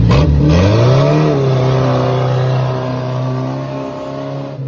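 Volvo Amazon wagon's four-cylinder engine revving up as the car pulls away across gravel, then running steadily and fading as it drives off.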